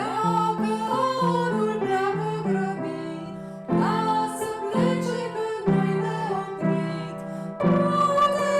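Music: a Christmas carol with singing over plucked acoustic guitar, its phrases starting anew about every four seconds.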